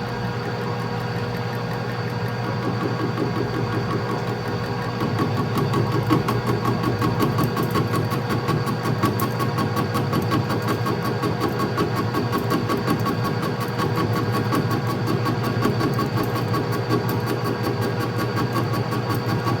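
Metal lathe running with a steady motor hum. About four or five seconds in, the tool starts cutting and a fast, regular chatter sets in as it takes a turning pass on an interrupted cut, which the lathe does not like.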